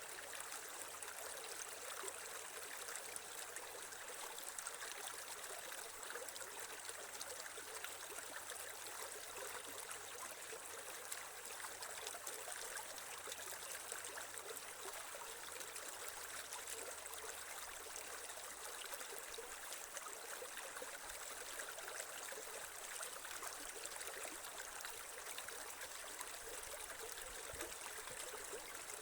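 Shallow creek water flowing and trickling steadily over stones.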